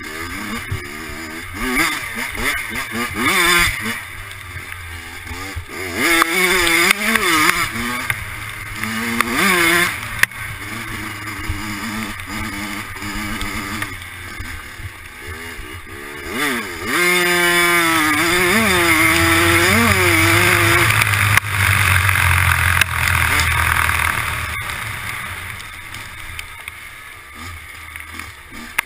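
Dirt bike engine, with a freshly rebuilt top end, revving up and easing off again and again as the bike is ridden hard. About two-thirds through it climbs steeply and holds a high rev for a few seconds before falling away.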